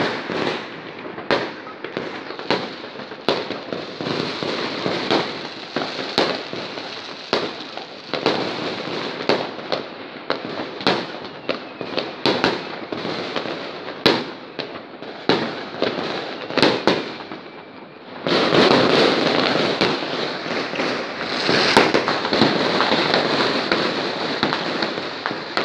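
New Year's Eve fireworks going off: many sharp bangs and pops in quick, irregular succession. About eighteen seconds in, the bangs run together into a louder, continuous dense volley.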